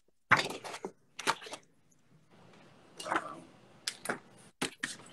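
Marker pen scratching across a poster as an autograph is signed: a run of short, irregular strokes.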